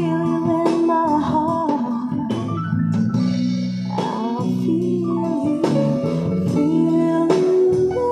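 A slow song with guitar and bass, played back through a pair of Creative S-700 4-inch mini speakers.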